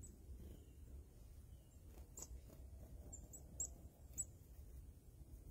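Faint, very high, short chirps from small wild songbirds coming to a hand held out with seed: a handful of brief notes between about two and four and a half seconds in, over a faint low rumble.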